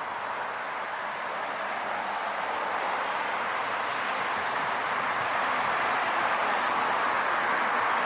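City street traffic: a steady rush of tyre and engine noise from passing vehicles, growing gradually louder.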